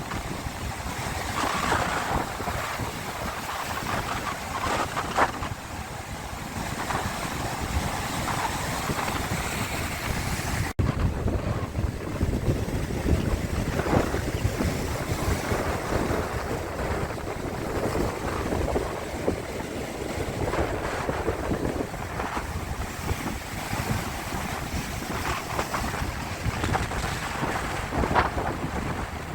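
Sea water washing and sloshing in uneven surges, with wind buffeting the microphone. A brief dropout about eleven seconds in.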